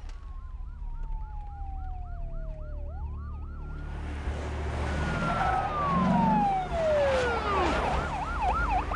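Police car sirens: one yelping in a fast warble, about three cycles a second, while another wails in long slow falls and rises, over a low rumble. The sound swells louder about halfway through as the cars close in.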